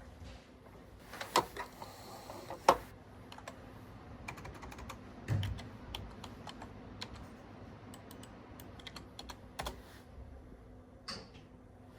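Typing on a computer keyboard: irregular soft key clicks, with two sharper clicks in the first three seconds and a low thump about five and a half seconds in.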